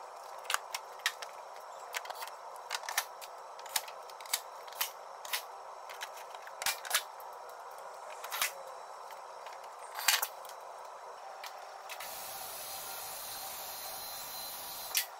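Plastic engine under tray being refitted beneath a raised car: a string of sharp clicks and knocks as its clips and fasteners snap and are tapped into place, over a steady hum. About twelve seconds in the clicks stop and a steady hiss takes over for about three seconds.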